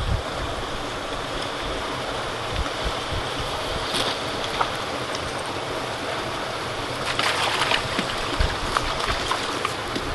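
Steady rushing of flowing creek water, with a few brief rustles about four seconds in and again around seven to eight seconds.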